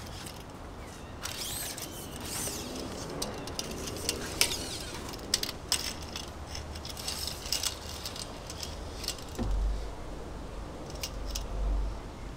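Retractable tape measure being pulled out and held taut, its blade rattling and clicking in scattered short bursts, with a scraping stretch near the start. Two low rumbles come near the end.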